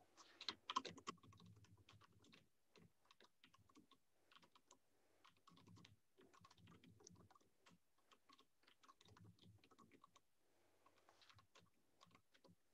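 Faint typing on a computer keyboard: irregular key clicks, with a louder flurry about half a second in.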